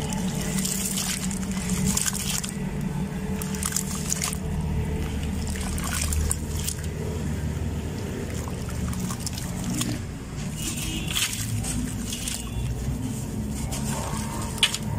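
Wet, gritty sloshing and splashing of hands squeezing and swishing crumbled sand-cement in a metal basin of water, over a low steady hum. Near the end, dry sand-cement crumbles and pours into the water.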